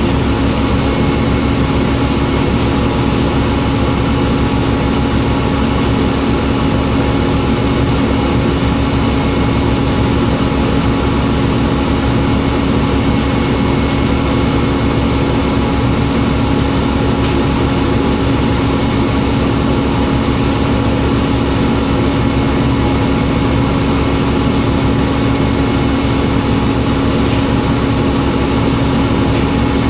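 Cummins ISL diesel engine of a New Flyer D40LF city bus idling at a standstill, heard from inside the passenger cabin as a steady drone with a constant low hum.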